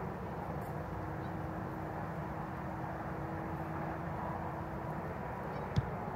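Steady outdoor background noise, a low even rumble, with a faint steady hum through the middle and a single sharp click near the end.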